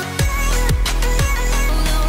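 Electronic background music with a heavy bass line whose notes slide down in pitch about twice a second.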